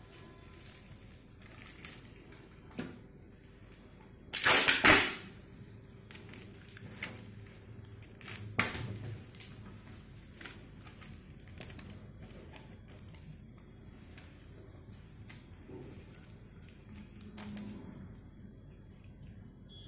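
Handling noise of a paper-plate leaf being pressed onto the top of a plastic pipe: scattered small clicks and taps of paper and plastic, with one louder rough, scraping noise lasting under a second about four seconds in.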